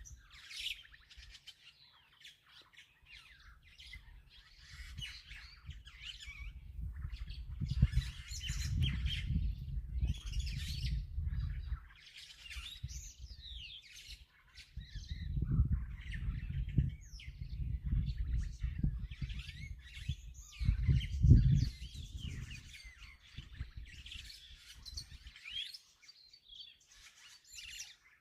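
Many birds chirping and calling in quick, overlapping bursts. A low rumble comes in twice, each time for several seconds, and is the loudest sound when present.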